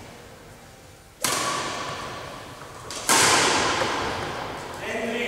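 Two sharp racket strikes on a badminton shuttlecock, about two seconds apart, the second louder, each ringing out in the echo of a large sports hall.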